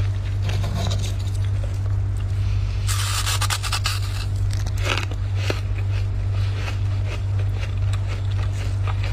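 Dry freezer frost being scraped, with one loud rasping scrape about three seconds in and scattered crackly clicks, over a steady low hum.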